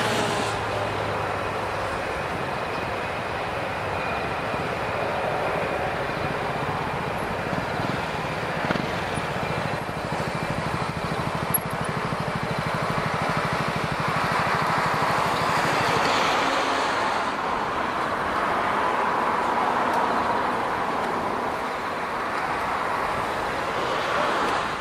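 Jet airliner engines, a steady rushing noise with a faint whine, growing stronger and brighter a little over halfway through.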